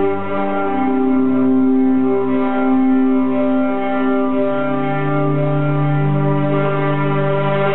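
Two amplified electric guitars sustaining long, layered droning notes with no picked attacks, the lower notes shifting to new pitches about a second in and again about halfway through.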